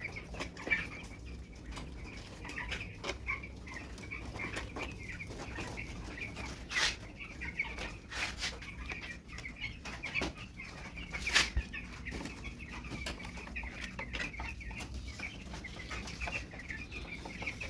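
Broiler chickens in a cage chirping and clucking continually, with a few sharp sudden sounds, the loudest about a third and two-thirds of the way through.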